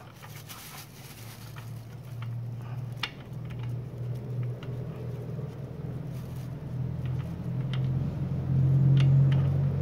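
A low, steady engine-like hum that grows gradually louder, loudest near the end, with a few faint clicks.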